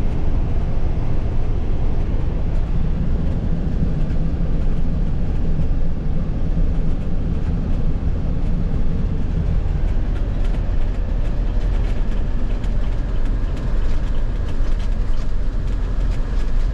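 Motorhome's engine and road noise heard from inside the cabin, cruising at highway speed: a loud, steady low rumble.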